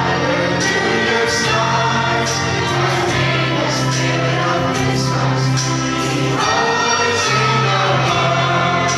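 Live singing into a microphone over a karaoke backing track, played loud through a hall's sound system. Sustained notes continue steadily throughout.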